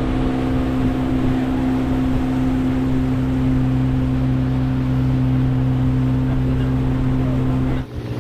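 Outboard motor of a wooden fishing canoe running steadily at speed, a constant drone over the rush of water and wind. Near the end the sound dips briefly and the engine note comes back slightly changed.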